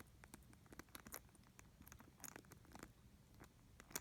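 Faint, scattered small clicks and light handling noise from fumbling a tiny key in a mini metal padlock on a handbag's turn lock.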